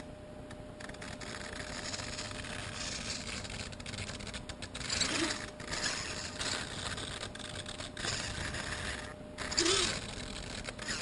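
Scraping and rustling handling noise, close on the GoPro's own microphone, as the camera is turned on its pan-and-tilt mount inside the foam fuselage. It swells and fades unevenly, with a few louder rubs.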